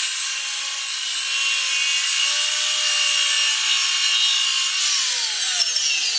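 Abrasive disc power tool grinding or cutting steel tubing: a steady high hiss with a whine, the whine dropping in pitch near the end.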